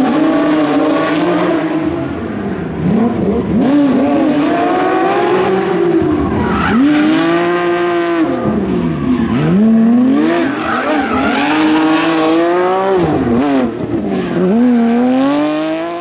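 Porsche rally car's engine at full racing pace, revs climbing and dropping again and again through gear changes and braking.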